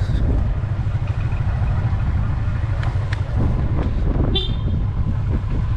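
Motorcycle running along a road with a steady low engine and wind rumble. A brief high-pitched tone sounds about four seconds in.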